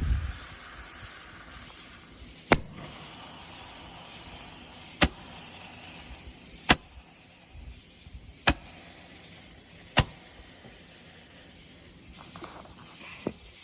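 Roman candle firing, five sharp pops one to two and a half seconds apart as each ball shoots out, with a weaker pop near the end.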